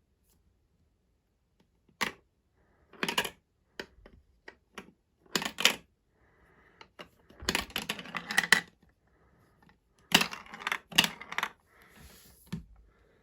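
Glass marbles clicking and clattering on a plastic Duplo-compatible marble run: separate sharp clicks, a dense rattling run about halfway through, and another cluster of clicks about three-quarters of the way in.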